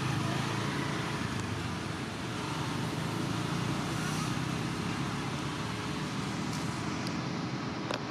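Steady outdoor background noise: a low rumble with an even hiss over it, and one small click near the end.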